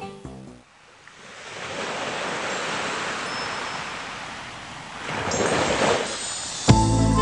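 Ocean surf: a wave washes in and slowly ebbs away, and a second wave surges about five seconds in. Music dies away at the start, and a new piece of music begins just before the end.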